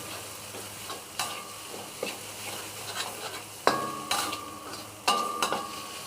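Curry paste with spices sizzling in a pan as it is stir-fried, with a spatula clinking against the pan about five times, some strikes leaving the pan ringing briefly.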